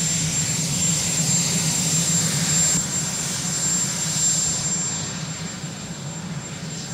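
Marine One, a Sikorsky VH-3 Sea King helicopter, running on the ground: its turbine engines give a steady high whine over a rushing roar. The hiss eases a little about five seconds in.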